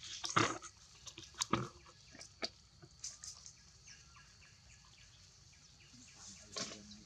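Young macaques feeding at a metal tray of rice: a few sharp knocks and clinks, mostly in the first couple of seconds and again near the end, over a steady high insect drone with small bird chirps.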